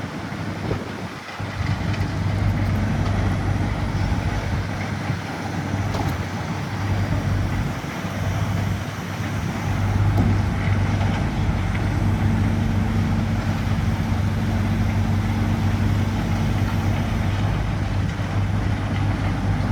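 Hitachi ZX130 tracked excavator's diesel engine running with a steady low hum. It gets louder about halfway through, and a higher steady whine is added for several seconds after that.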